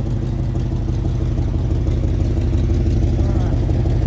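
A 1968 Ford Mustang's 289 V8 idling steadily, with an even low rumble.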